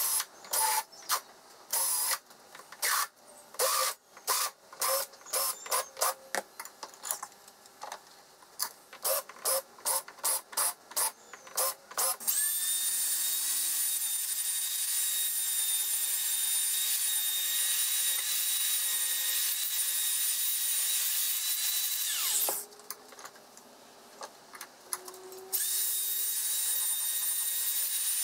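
Cordless drill with a countersink bit chamfering holes in an aluminium bar, in a quick series of short bursts at about two a second. About twelve seconds in, a power tool spinning an abrasive pad against the aluminium starts up with a steady high whine, stops for about three seconds near the end, then runs again.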